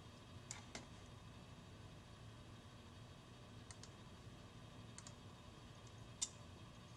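Faint computer mouse button clicks, a few times in quick pairs, with a single louder click near the end, against near silence.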